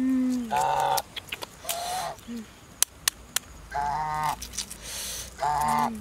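Domestic geese honking: about four short honks a second or two apart, with a few light clicks in between.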